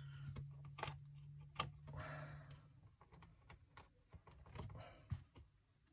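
Small clicks and rustling of jumper wires being pushed into and bent around the spring terminals of a plastic electronics kit board, with a low steady hum that stops about three seconds in.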